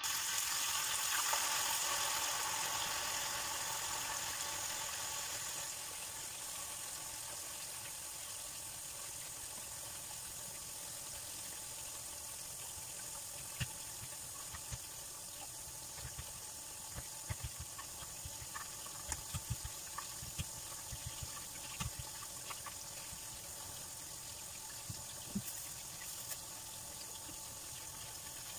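Tofu blocks deep-frying in hot oil in a pan: a steady sizzle, loudest in the first few seconds and then settling, with scattered pops of spattering oil in the second half.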